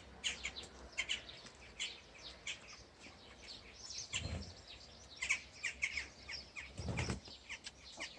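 Small birds chirping in quick, repeated high calls, with two soft low thumps about four and seven seconds in.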